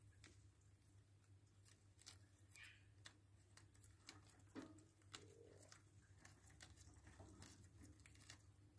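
Faint, crisp clicks and snips of budgerigars' beaks biting and tearing at a fresh lettuce leaf, irregular and close together.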